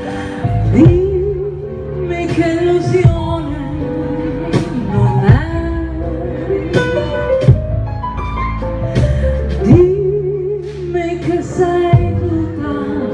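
A woman singing a 1950s-style Italian swing song with a live band, her long held notes wavering with vibrato over bass and drum strikes.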